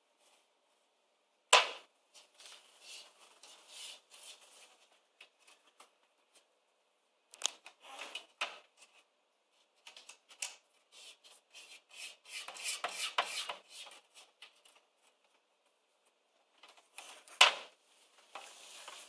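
A cat moving about and scratching inside a closed wooden drawer cabinet: bouts of scratching and rubbing against the wood, with two sharp knocks, one about a second and a half in and one near the end, as it bumps the panels.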